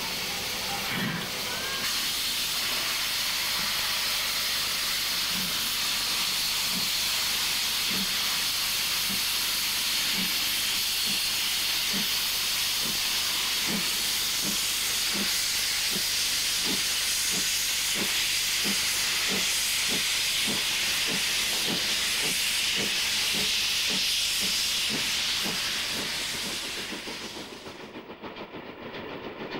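DB class 23 2-6-2 steam locomotive 23 105 starting away: loud steady steam hiss with steam escaping around the cylinders, and exhaust chuffs that begin about five seconds in and come steadily faster as it gathers speed. The hiss stops abruptly shortly before the end.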